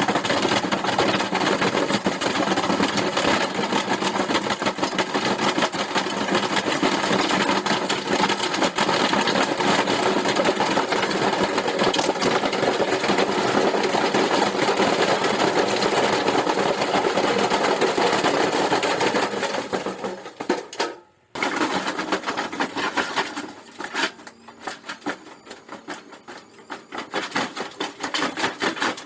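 Washing machine running out of control and shaking itself apart, with a loud, rapid, continuous clattering and knocking. About two-thirds of the way in the sound drops out briefly. It comes back as quieter, irregular rattling, then builds again near the end.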